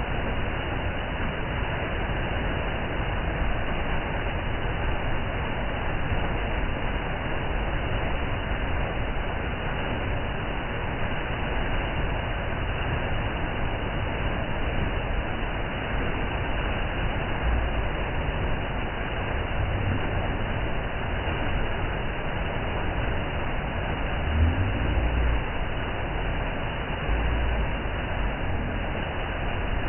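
A waterfall's steady rushing roar of falling water, with a few brief low thuds in the second half.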